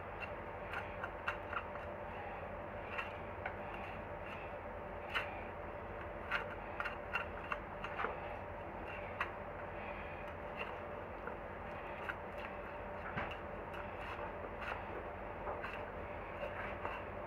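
Kitchen knife cutting up a soft-shelled turtle on a plastic cutting board: scattered light clicks and taps at irregular intervals, over a steady background hum.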